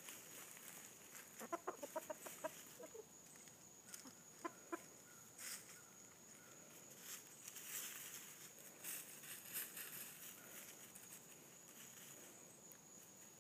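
Chickens clucking softly: a quick run of short clucks about a second and a half in and two more around four and a half seconds, with faint rustling and scratching in dry leaf litter as they forage.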